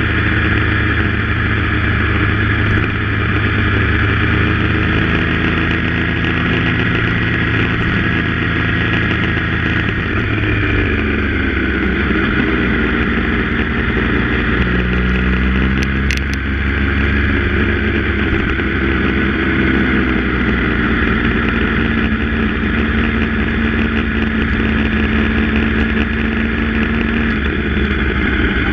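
Yamaha MT-09's inline three-cylinder engine running through an SC-Project full exhaust while the bike is ridden, the exhaust note rising and falling with throttle and gear changes. The pitch drops about ten seconds in, then rises and falls again.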